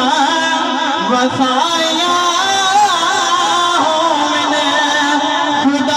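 A man singing a Punjabi naat, a devotional song in praise of the Prophet Muhammad, solo into a microphone over a PA, with long held notes that bend and waver in pitch.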